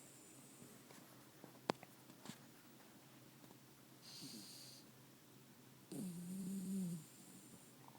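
Sleeping dog snoring: a soft hissing breath about four seconds in, then one pitched snore about six seconds in that lasts about a second. There is a single sharp click a little under two seconds in.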